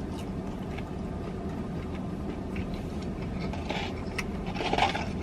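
Car engine idling, a steady low hum heard from inside the cabin, with faint ticks and a brief rustle near the end.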